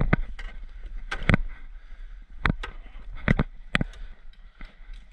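Airsoft gunfire: a string of sharp, irregular cracks and clicks, some in quick pairs.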